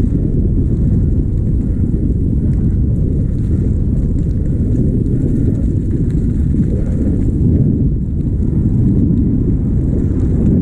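Wind buffeting the microphone: a loud, steady, churning low rumble.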